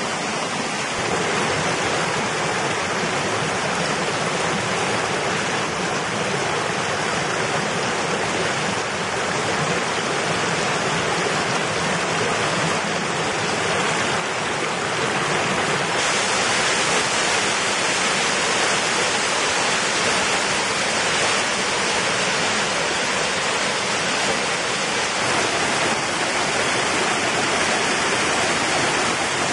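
Mountain stream water rushing and splashing over rocks in small cascades and falls, a steady rushing hiss. The sound shifts slightly a couple of times and turns brighter about halfway in.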